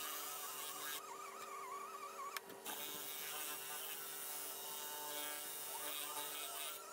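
Electric drill with a paint-mixing paddle running in a thick batch of paint, a buzzing motor whine that wavers in pitch. It is broken by a click and a short gap about two and a half seconds in.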